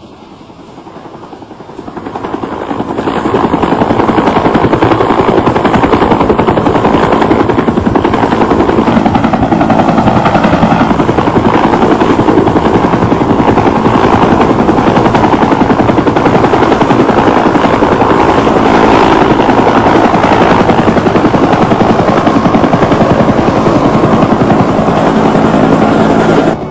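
Helicopter rotor noise: a steady, rapid chop from a helicopter flying close overhead. It swells in over the first few seconds, holds loud and even, then cuts off abruptly at the end.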